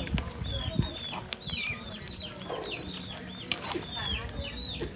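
Chickens calling: many short, high calls, each rising and falling, in quick succession, with a few sharp clicks now and then.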